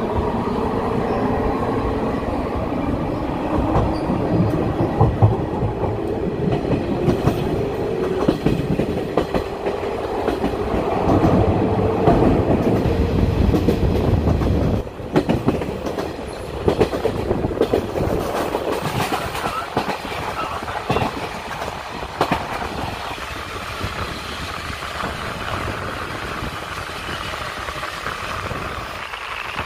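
JNR 185 series electric train running, heard through an open window: rushing noise with wheels clattering over rail joints and points. A whine rises slowly in pitch through the first half as the train gathers speed.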